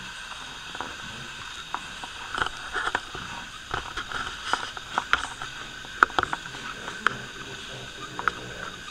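Irregular light clicks, taps and knocks, a dozen or more scattered unevenly, the sharpest about six seconds in, over a steady background hiss with a faint high hum.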